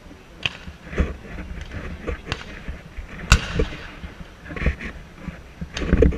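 A black-powder Civil War field cannon firing, one loud boom about three seconds in with a rolling echo after it. Several fainter sharp cracks come before and after.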